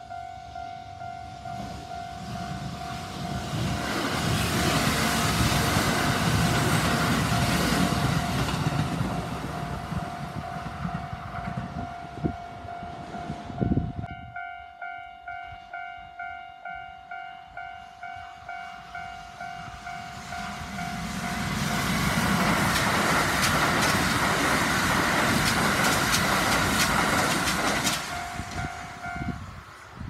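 Japanese level-crossing warning bell ringing while a Kintetsu limited express train passes over the crossing. After a cut about 14 seconds in, a second crossing's bell rings in pulses about twice a second before another limited express passes, the bell stopping soon after the train has gone.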